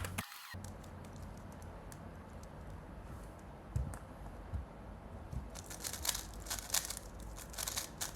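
Tornado v3 M speedcube being turned very fast: a quick, light clatter of layer-turn clicks beginning about five and a half seconds in, after a few seconds of faint handling.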